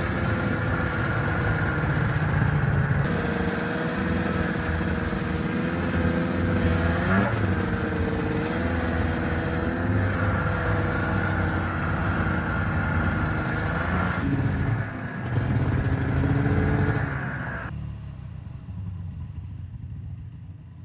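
Snowmobile engine running under way, its pitch rising and falling with the throttle, with a quick rev about seven seconds in. Near the end the engine sound drops sharply and fades.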